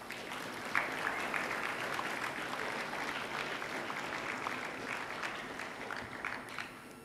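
An audience applauding, dying away near the end.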